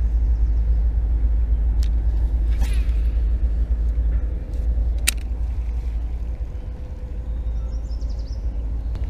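Steady low wind rumble on the camera microphone, with a few short clicks from handling the rod and reel.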